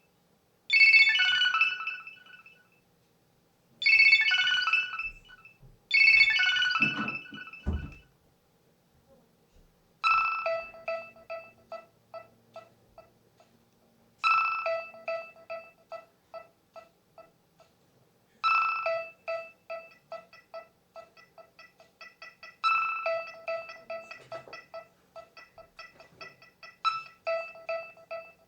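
Nokia 6100 mobile phone playing its ringtones through its small built-in speaker: a short ring phrase repeating about every two seconds stops about eight seconds in, with a low thump just before it ends. After a short pause a different ringtone starts, a quick melody of short notes whose phrase repeats about every four seconds.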